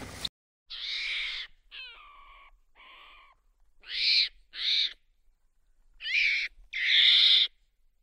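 Monkey calling: a series of about seven short, high-pitched calls in uneven clusters, some with falling pitch, the loudest pair near the middle and a longer one near the end.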